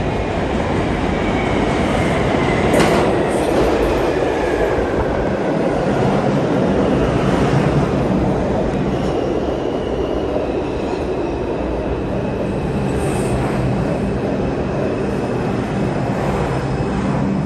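New York City Subway R142 train arriving along the platform and slowing down. A steady, loud rumble of wheels on the rails runs through it, with a thin high-pitched squeal over much of it and a sharp clack about three seconds in.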